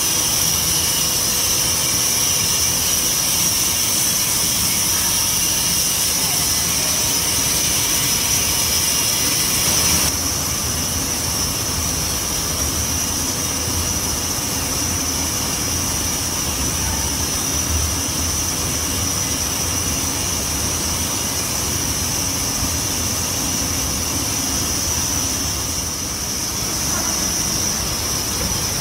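Steady, loud hiss of steam with the rumble of running machinery from a paddy parboiling cooker and its steam lines. It steps down slightly about ten seconds in.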